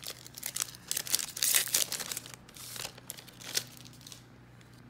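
Foil wrapper of a Magic: The Gathering collector booster pack crinkling and tearing as it is pulled open by hand, in a dense run of crackles that stops about three and a half seconds in.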